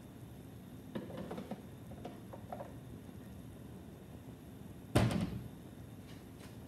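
Kitchen wall-cupboard door shutting with a loud knock about five seconds in, after a few light clinks and rattles of dishes being moved about on the shelves.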